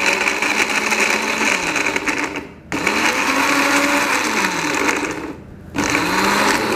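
Small countertop electric blender with a glass jar grinding a wet spice paste of shallots, garlic, chilli, turmeric and ginger with a little water. It runs in three spells, stopping briefly twice, and its motor pitch sags as it labours on the thick paste.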